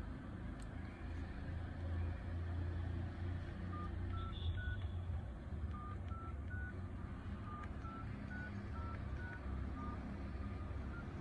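Nokia E71 keypad tones: short single beeps, one per key press, in a few slightly different pitches stepping upward, starting about four seconds in as digits are typed. Underneath is the steady low rumble of a car cabin.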